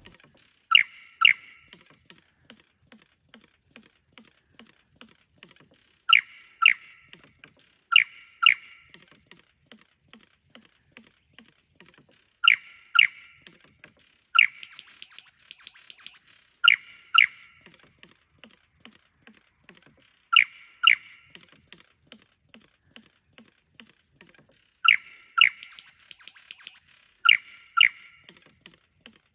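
Superb lyrebird singing: loud, sharp notes in pairs about half a second apart, repeated every few seconds, with two bursts of rapid high chattering between them and faint low ticks underneath.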